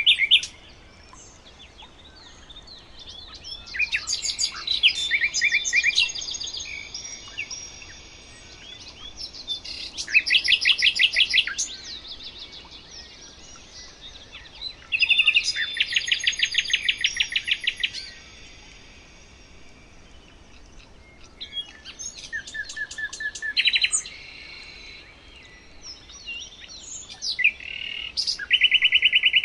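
Songbirds singing: bouts of fast trills and rapid repeated chirps about every five or six seconds, with quieter chirping in between.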